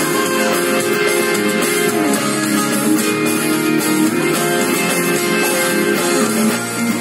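Les Paul-style electric guitar playing a lead solo line, with a few bent notes.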